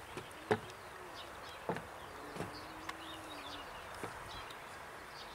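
Faint outdoor ambience with scattered short chirps and calls, and a brief steady insect-like buzz a little past halfway.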